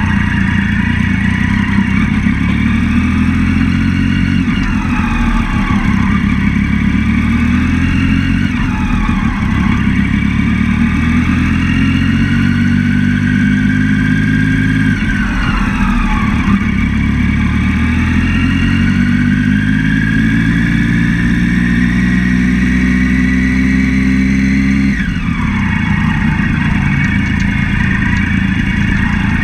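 Triumph Daytona 675's three-cylinder engine pulling at low revs, its pitch climbing slowly for about fifteen seconds, then falling off sharply. It climbs again for about ten seconds and falls off once more near the end.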